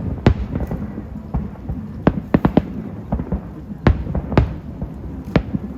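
New Year's fireworks going off: about ten sharp bangs at uneven intervals, some in quick clusters, over a continuous low rumble of more distant bursts.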